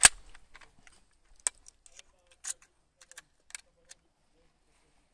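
Metallic clicks and clacks of a Berthier Mle 1907/15 rifle's action being handled as it is loaded, with the bolt open and a cartridge going in. A sharp clack right at the start, then several lighter clicks, quieter near the end.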